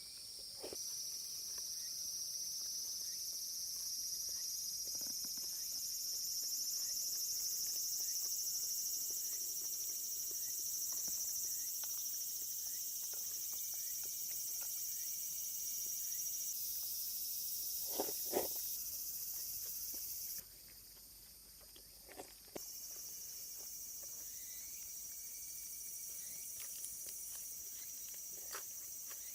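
A steady, high-pitched insect chorus chirring continuously, with scattered light clicks and two sharper knocks about two-thirds of the way through.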